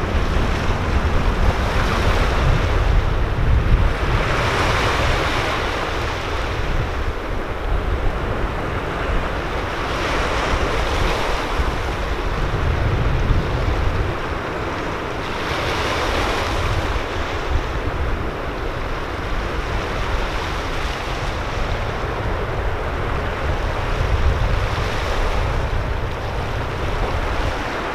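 Sea waves washing and breaking against coastal rocks, swelling and ebbing every several seconds, with wind rumbling on the microphone.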